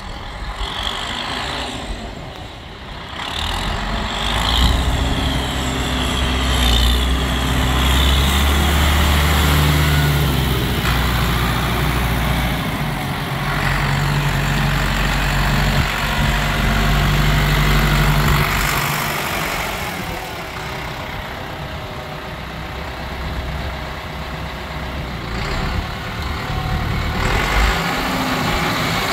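Ford 7610 tractor's four-cylinder diesel engine running as the tractor drives and turns. The engine note rises about four seconds in, holds strong, eases off about two-thirds of the way through, and picks up again near the end.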